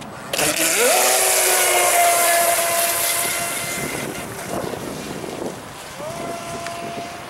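Electric RC mono-hull speedboat on a 4-cell battery throttling up from launch: the motor and propeller whine rises quickly in pitch, with a loud rush of spray, then holds a steady high whine that fades as the boat runs away. About six seconds in the whine rises again and holds steady.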